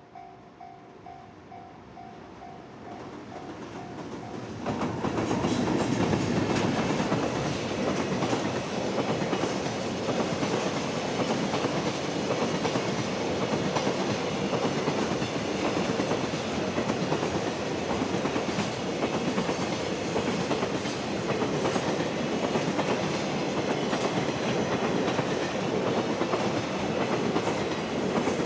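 A freight train arrives about five seconds in and passes close by, its wagons rolling past with steady, loud wheel-on-rail noise. Before it arrives, a faint ding repeats about twice a second.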